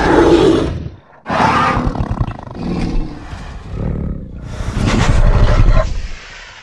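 Dinosaur roar sound effects voicing a Carnotaurus. One roar breaks off about a second in, then after a short gap a longer roar rises and falls several times and fades out near the end.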